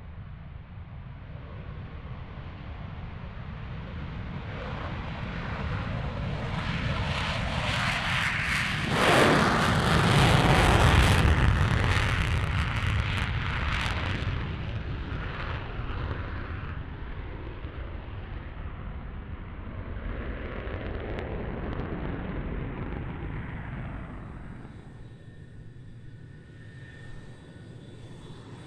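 Jet noise from a MiG-31BM interceptor's twin D-30F6 afterburning turbofans on a takeoff run. The roar builds, is loudest about ten seconds in, then fades away. Near the end a quieter jet sound with a steady high whine takes over.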